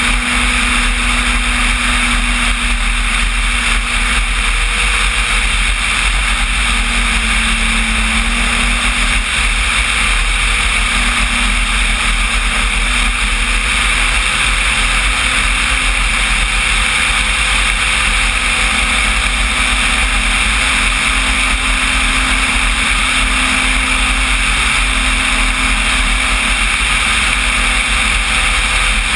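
Radio-controlled Cessna 185 floatplane's electric motor (about 3 kW input) and propeller running steadily in flight, heard from on board, with a drone that shifts slightly in pitch and wind rumble over the microphone.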